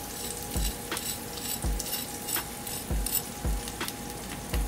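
A fork tapping and pressing on the crispy, pan-seared skin of a chicken breast, giving a dull tap about once a second over a steady crackling sizzle from the hot skin.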